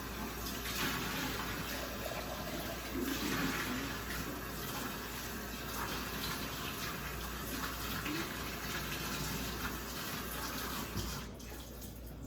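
Kitchen tap running as a glass coffee carafe is rinsed out under it; the water is shut off near the end.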